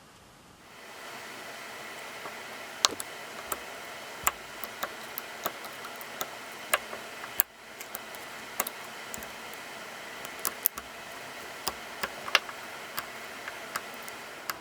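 Proto 4749 1/4-inch drive ratchet being worked by hand, its pawl giving sharp, irregularly spaced clicks, roughly one or two a second, over a steady hiss.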